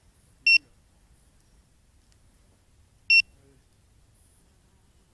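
Short high electronic beep, sounding twice about two and a half seconds apart: once about half a second in and again about three seconds in.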